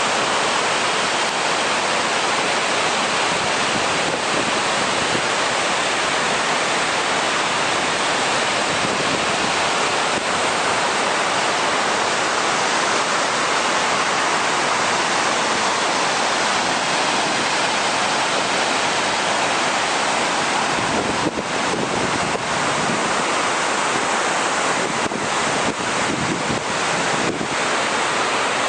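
Glacial meltwater waterfall, falling water rushing in a loud, steady, even hiss.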